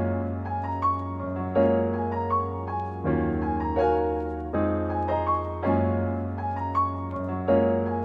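Background music: a keyboard playing a repeating pattern of notes over sustained chords and a steady bass, the chords changing about every second and a half.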